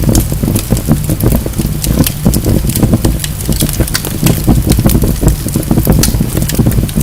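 Wood fire burning in a fireplace, crackling and popping continually over a low rumble of the flames.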